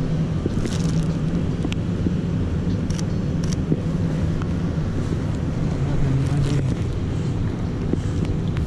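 Wind rumbling on the microphone over steady street traffic noise, with scattered short clicks.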